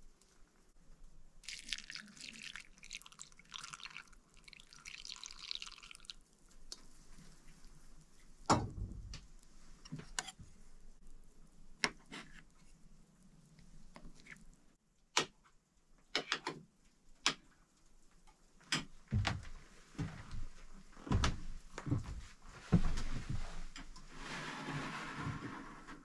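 Warm milk is poured into a bowl with a hissing splash for a few seconds. Then a metal spoon stirs and scrapes in the bowl, making scattered sharp clinks against its side.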